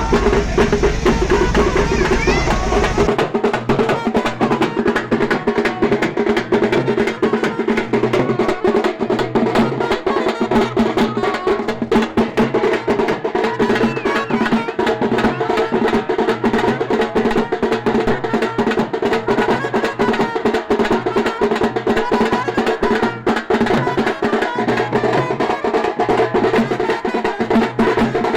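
Drums playing a fast, dense beat with other music, loud and continuous; the sound changes abruptly about three seconds in.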